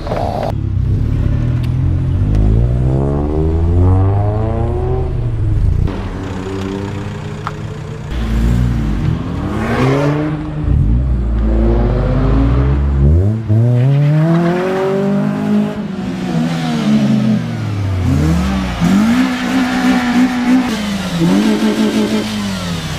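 Small cars, Honda Civics and a CRX del Sol among them, driving past one after another with their engines revved up and down again and again; in the second half the revs are held briefly at a steady pitch before falling away.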